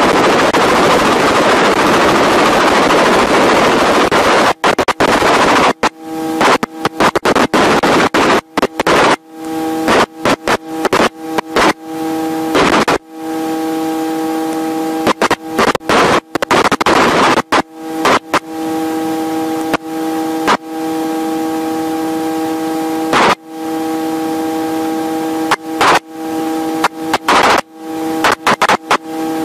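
Helicopter noise heard from inside the aircraft: a loud rushing noise for the first six seconds or so, then a steady whine of several even tones, chopped by many sudden dropouts and clicks.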